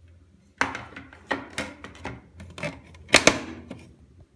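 A string of sharp clicks and clattering knocks from hard fittings being handled, about seven in all over three seconds, the loudest pair about three seconds in.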